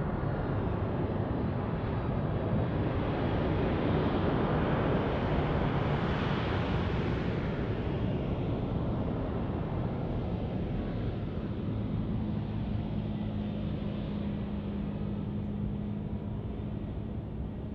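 Japan Airlines Boeing 767-300ER's jet engines on landing approach: a broad jet rumble that swells as the aircraft passes, peaks about a third of the way in, then slowly fades as it moves off toward the runway. A steady low hum joins in the later part.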